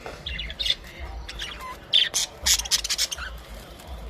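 Budgerigars chattering and chirping in quick, short calls, with a cluster of loud, sharp chirps about two to three seconds in.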